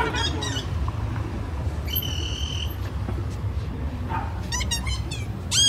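Short, wavering high-pitched squeaks, with one steady whistle-like note held for under a second about two seconds in, over a low rumble of street traffic.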